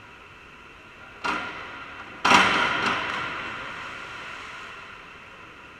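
A springboard clatters as a diver leaves it, and about a second later the diver hits the water with a loud splash. The splash echoes in the tiled pool hall and dies away over a couple of seconds.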